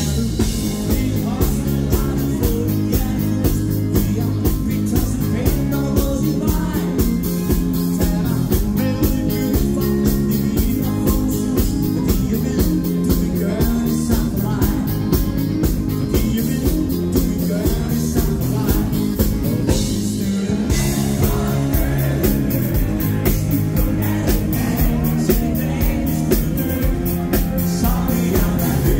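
Live band playing an up-tempo song on electric guitars, bass guitar, keyboards and drums with a steady beat, recorded from the audience.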